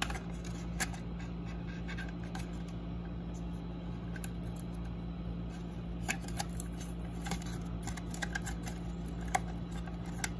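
Scattered light clicks and scrapes of a plastic lamp grille cover and nylon cable ties being handled and threaded together, over a steady low hum.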